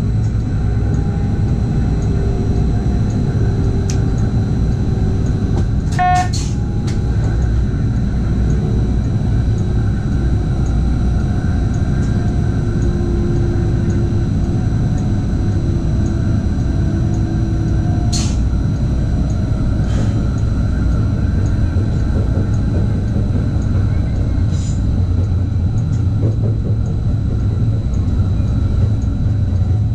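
Regional train running along the line, heard from the driver's cab: a steady low rumble of wheels on rail with a faint whine that drifts slowly in pitch. About six seconds in there is a short tone, and a few sharp clicks come later.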